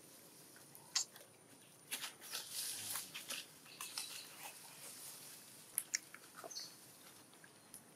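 Faint rustling and crackling of dry leaves and ground litter as macaques move and forage, with a few sharp clicks: one about a second in and two close together near six seconds.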